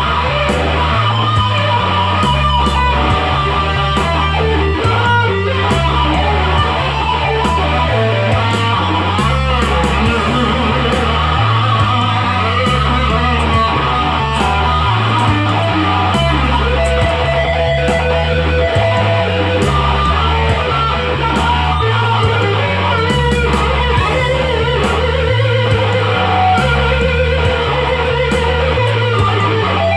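Instrumental rock music: an electric guitar plays sustained lead lines over a bass line that moves in steady steps, with sharp ticks keeping time throughout.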